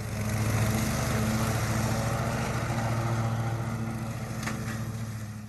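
Small engine running at a steady speed, fading in at the start and out near the end.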